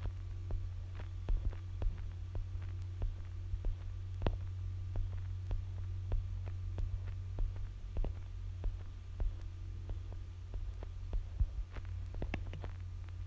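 A steady low hum with faint, irregularly spaced clicks over it.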